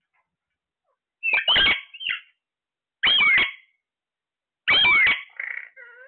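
Alexandrine parakeets giving three loud, harsh calls about a second and a half apart, each with a bending pitch, followed by softer chatter near the end.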